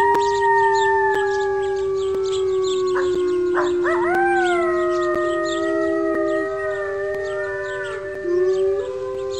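Several canines howling together: long, overlapping howls that hold and slowly bend in pitch, with a quick wavering flurry of howls about three to four seconds in.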